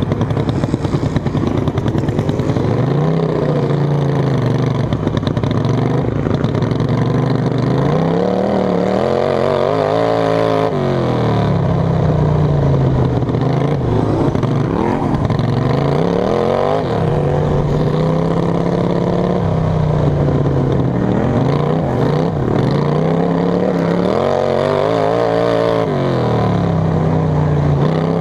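Racing lawn mower's engine heard on board at full race, revving up on the straights and dropping back into the turns, its pitch rising and falling several times.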